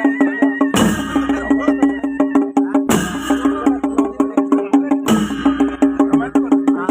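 Panche baja band playing: fast, even drum strokes, about six a second, under a held reedy tone, with cymbal clashes ringing out about every two seconds.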